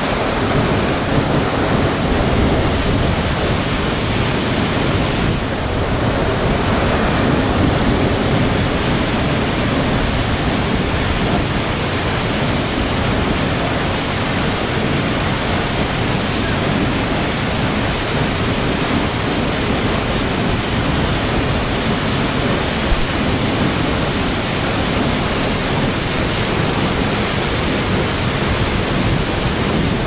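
Waterfall pouring into a plunge pool: a loud, steady rush of falling water.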